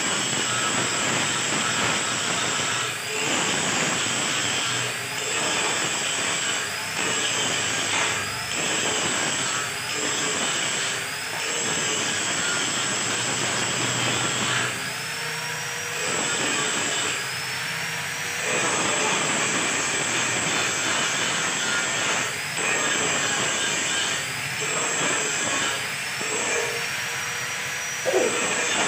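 Angle grinder grinding steel: a loud grinding whine that eases off every second or two as the disc is lifted from the work, the motor's pitch climbing back up each time it runs free. There is a sharp knock near the end.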